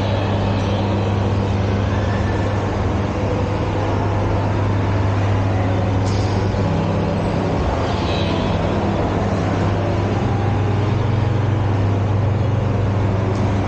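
Steady low hum and even rumble of a running escalator, heard while riding it, over the general background noise of a shopping mall.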